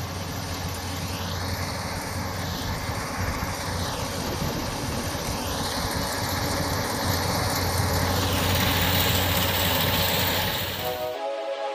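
Kubota rice combine harvester running under load as it cuts rice, a steady engine hum with the rattle of the cutter and threshing drum. It cuts off about 11 seconds in and music starts.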